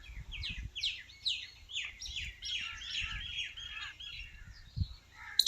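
Small birds chirping: a rapid run of short, falling chirps, several a second. There are a couple of low knocks and a sharp click near the end.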